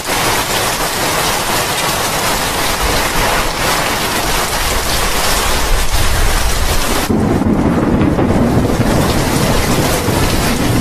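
Heavy tropical rain falling in a thunderstorm, a steady loud hiss. About seven seconds in the sound abruptly turns duller and deeper, a low rumble taking over from the hiss.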